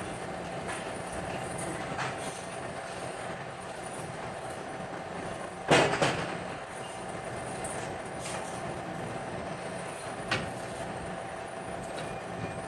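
Steady mechanical running hum with a held tone, broken by one loud metallic clank about six seconds in and a smaller knock about ten seconds in.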